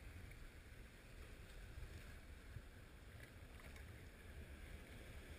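Faint wind rumble on the microphone over low water noise around a small boat on choppy water.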